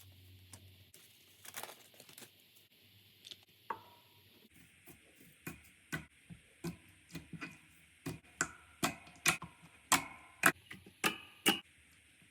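Slime being squeezed and poked, making sharp clicking pops. A few faint crackles come first; about halfway through, a run of pops begins at roughly two a second and gets louder before stopping just before the end.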